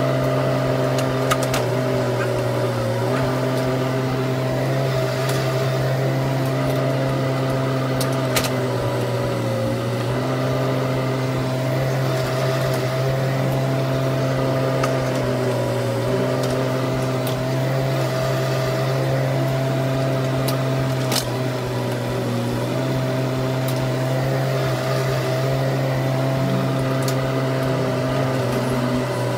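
Bobcat E10 mini excavator's three-cylinder diesel engine running steadily while digging. Its pitch dips for a moment about every six seconds as it takes load. A few sharp knocks come through.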